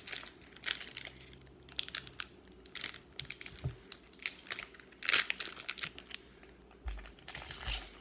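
Trading card packs and cards handled by hand: wrapper crinkling and tearing, and cards rustling and tapping against each other in irregular short bursts, the loudest a little past the midpoint.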